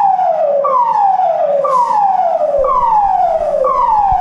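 Building evacuation alarm sounding the German standard emergency signal: a loud tone that falls from high to low over about a second, repeated about once a second, the signal for everyone to leave the building.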